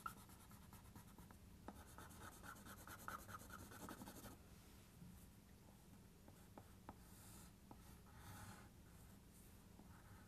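Faint scratching of a drawing tool on paper as a dark area is shaded in: a run of quick back-and-forth strokes for about two and a half seconds, then scattered light strokes and ticks.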